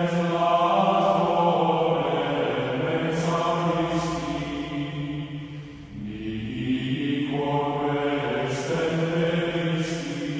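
Background music: a choir chanting in long, held phrases, with a break between two phrases about six seconds in.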